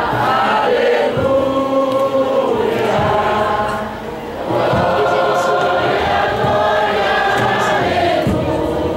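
Church congregation singing a hymn, many voices together in long phrases, with a short break between phrases about four seconds in.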